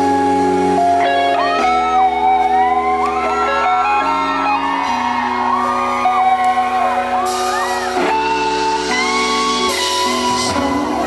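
Live band music led by electric guitar over a steady bass line, with a man singing into a microphone near the end.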